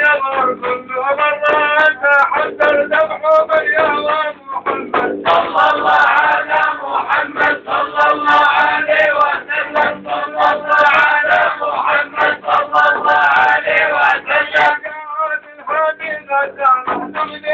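Sufi devotional chanting: a group of men singing together to a large frame drum beaten in a steady rhythm. The chanting grows fuller about five seconds in and thins again near the end.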